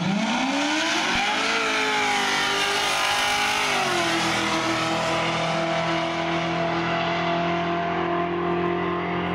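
A car engine revs up hard over about a second and a half, drops back a little about four seconds in, then holds steady at high revs.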